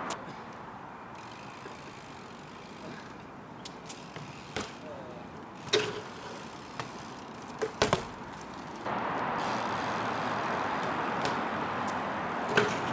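Sharp knocks and clanks of a BMX bike being handled and ridden on concrete: a few single hits, the loudest a quick pair about eight seconds in. A steady background hiss comes up about nine seconds in.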